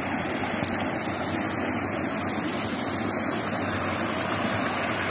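Steady rush of river water pouring over a small rock weir in a low cascade, with one brief click less than a second in.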